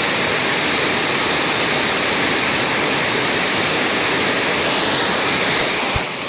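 Mountain stream rushing over rocks: a steady, even wash of water noise, with a brief low bump near the end.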